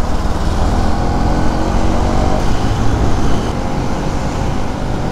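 Bajaj Pulsar NS200's single-cylinder engine running as the motorcycle rides through traffic, with wind rushing over the helmet microphone.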